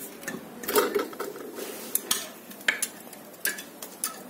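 Hand tools and loose engine parts clinking and knocking irregularly against a stripped two-cylinder diesel engine block, in a string of sharp metallic clanks.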